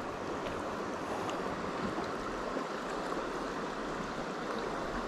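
Swift river current flowing steadily past, an even rush of water.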